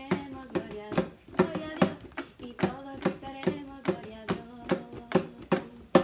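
Djembe hand drum played in a steady beat, about two and a half strokes a second, with a woman singing a praise song over it.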